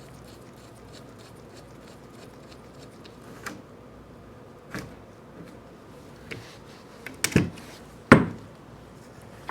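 Scattered light clicks and knocks of small lathe parts being handled on a workbench, with the two loudest knocks near the end.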